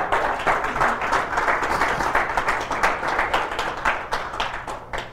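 Church congregation clapping and applauding in praise, fading away near the end.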